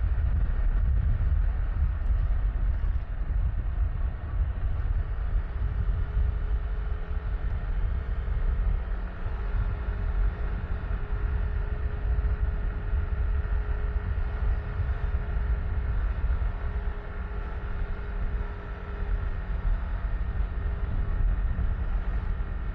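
Yamaha Tricity 155 scooter on the move: a heavy, uneven low rumble of wind buffeting the camera's microphone over the steady note of its single-cylinder engine.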